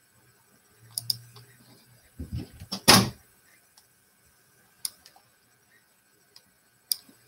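Scattered clicks at a computer, with a short low hum and a few knocks, and about three seconds in a single loud thump.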